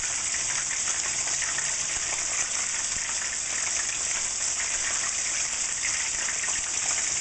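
Beer-battered cod pieces deep-frying in hot oil in a wok: a steady, dense sizzle with fine crackling.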